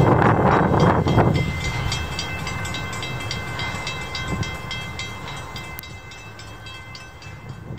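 Steam locomotive pulling open passenger cars, its exhaust chuffing in a regular beat. Loud at first, it drops sharply about a second and a half in and then fades away steadily.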